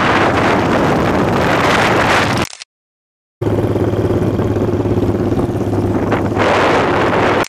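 Motorcycle engine running at riding speed with heavy wind rush on the microphone. The sound cuts out completely for about a second at the midpoint, then comes back as a steady engine note under the wind.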